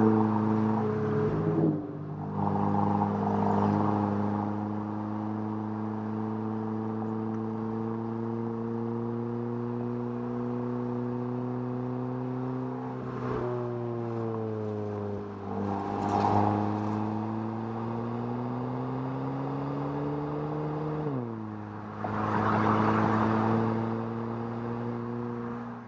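Audi TT engine running under way, a steady engine note with wind and road noise. Its pitch sags and climbs again about halfway through, then drops sharply about three quarters in.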